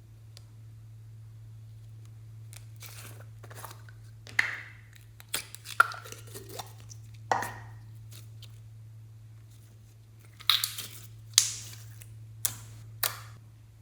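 Slime being squished and pulled apart by hand, giving scattered sticky pops and crackles in two clusters with quieter stretches between.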